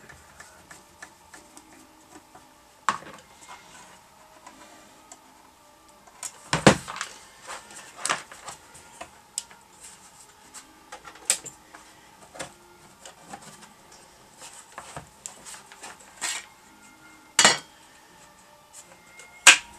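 Mobile CB radio being taken apart by hand: irregular clicks, knocks and clatters as its case and cover are handled and pulled apart, a few of them sharp and loud. Faint background music runs underneath.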